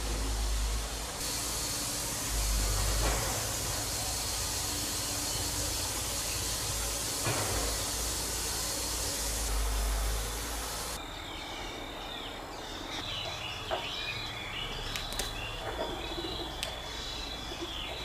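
Outdoor ambience: a steady hiss over a low rumble for about the first ten seconds, then quieter, with birds chirping, a steady high tone and a few faint clicks.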